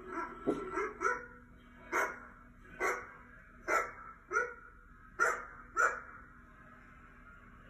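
A dog barking through a laptop's speaker: about nine short barks, roughly one a second, stopping about six seconds in.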